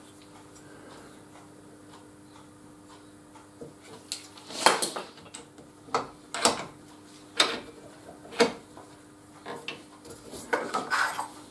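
Sharp metallic clinks and knocks as a circular saw blade and the clamping parts of a saw-blade sharpening machine are handled and tightened. They come about a second apart from about four seconds in, with a short rattle near the end, over a faint steady hum.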